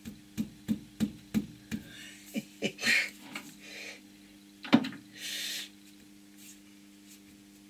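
Brass bar knocking a small four-jaw independent chuck off its tight press-fit backplate: about eight quick metal knocks, roughly three a second, then one harder knock near the five-second mark.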